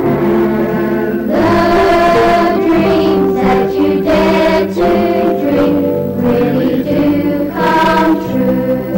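Choir singing slow, held notes, with the chords changing every second or so.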